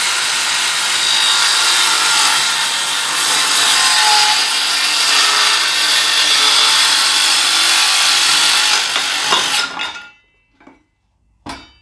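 Cordless compact circular saw running and cutting a 45-degree mitre through a polymer skirting board, a steady loud saw noise. The saw stops a little before ten seconds in, followed by a few short knocks as it is lifted away.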